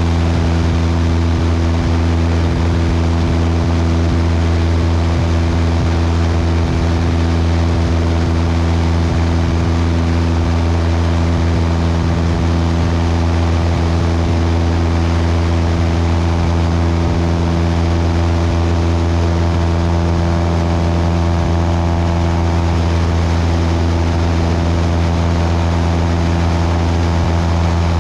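Cessna 172's piston engine and propeller droning steadily in flight, heard from outside beneath the wing with airflow noise over it.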